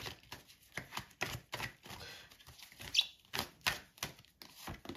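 Oracle cards being handled on a table: a quick, irregular run of light clicks and slaps, about three a second, as cards are picked up, flicked and laid down.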